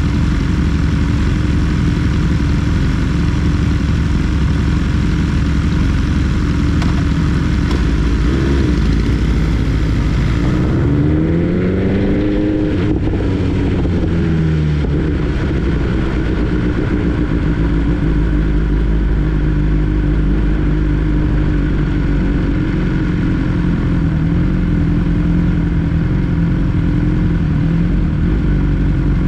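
BMW S 1000 R inline-four motorcycle engine running steadily while riding, with a heavy low rumble under it. About ten seconds in, the engine's pitch rises and then falls back over a few seconds.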